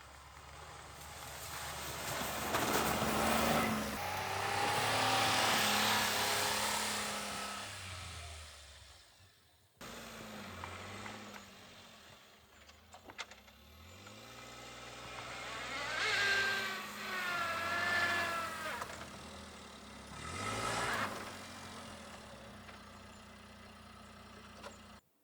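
A vehicle's engine and tyres, swelling and fading as it drives past several times, its engine note gliding up and down, with two abrupt cuts between passes.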